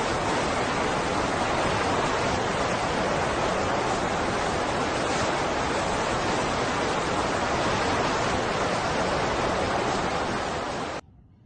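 Steady, even rushing noise of a storm, with no pitch or rhythm, cutting off abruptly near the end.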